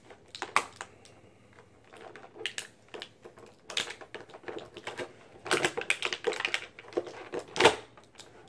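Plastic packaging tray clicking and crackling as a Mattel WWE Elite action figure is popped out of it by hand: an irregular string of short clicks, densest about two thirds of the way through, with a sharp loud snap near the end.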